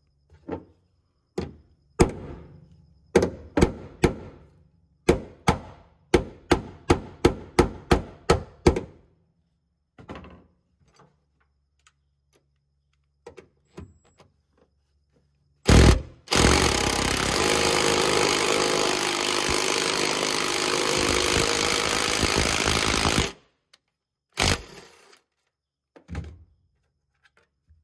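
Workshop sounds: a quick, uneven series of about eighteen sharp knocks, then a single loud knock and a power tool running steadily for about seven seconds before it stops. A couple of lighter knocks follow.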